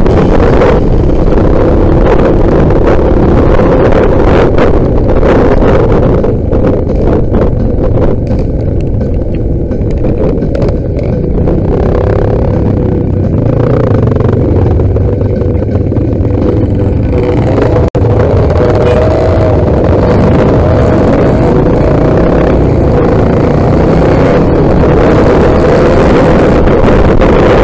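Dirt bike engine running steadily while the bike is ridden.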